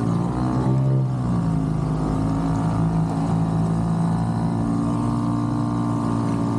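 Small motor of a bumper boat running steadily, its pitch dipping briefly and recovering about a second in.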